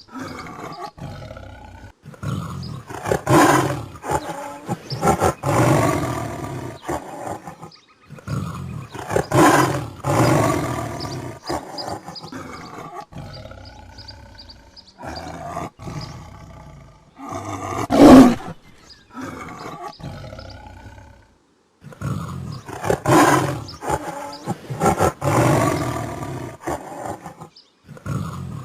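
Tiger roaring and growling in a series of loud, rough calls separated by short pauses, with the sharpest, loudest roar about two thirds of the way through.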